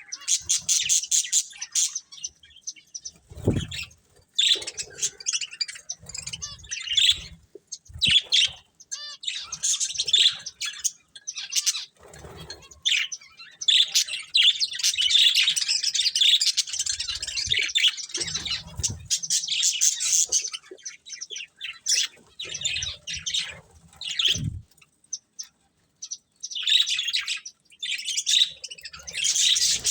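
Several budgerigars chirping and chattering in bouts, busiest in a long stretch of continuous warbling in the middle, with a few soft low knocks.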